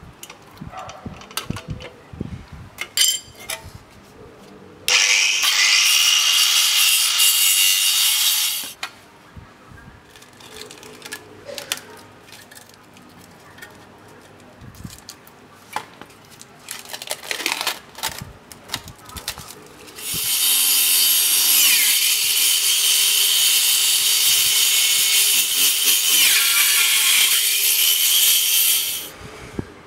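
A Total angle grinder fitted with a Makita 4-inch, 30-tooth circular saw blade cuts through a wooden board twice: a cut of about four seconds, then a longer one of about nine seconds that starts about 20 seconds in. Before and between the cuts come scattered clicks and knocks from handling the tool and board.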